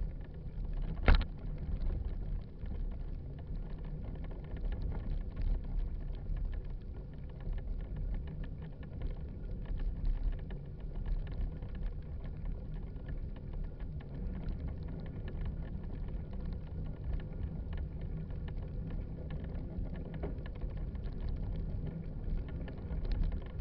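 Steady low rumble of wind buffeting the microphone and tyres rolling over a dirt and grass trail during a bike ride, with one sharp knock about a second in.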